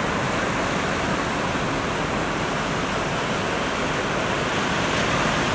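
Steady rush of ocean surf, an even wash of noise with no distinct breaks or splashes.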